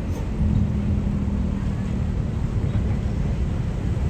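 Tour bus engine running with a steady low rumble.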